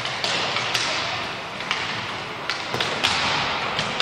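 Inline hockey in a reverberant hall: skate wheels rolling on a wooden floor, with sharp, irregular clacks of hockey sticks striking the puck and the floor, about seven in four seconds.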